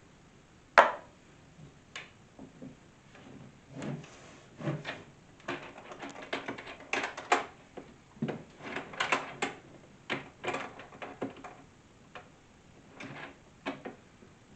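Irregular knocks, taps and clatter of wooden cabinet parts and small hardware being handled during hand assembly, with one sharp knock about a second in.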